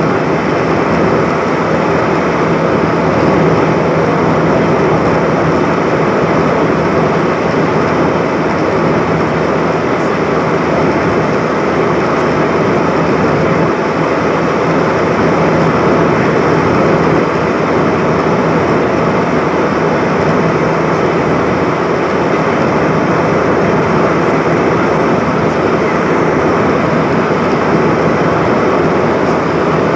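Steady cabin noise inside an Airbus A320-232 in flight, heard from a window seat over the wing: its IAE V2527 turbofans running and air rushing past the fuselage, with a faint steady low hum under an even roar.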